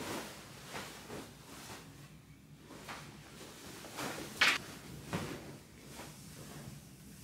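Bedding, a duvet and a cotton blanket, rustling and flapping as a bed is made, in a string of short swishes. One sharper, louder burst comes about four and a half seconds in.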